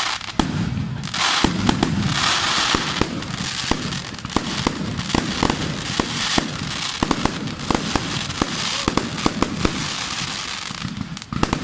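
Fireworks going off: a rapid string of sharp bangs and pops, with stretches of hissing crackle in between.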